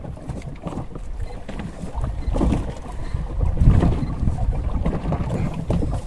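Wind buffeting the microphone on a boat at sea: an uneven low rumble that swells and fades.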